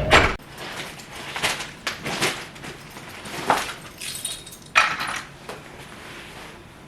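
Scattered knocks, clinks and rustles of keys and a door being handled on coming indoors, with about five sharper knocks spread over several seconds. A car's driving noise cuts off just after the start.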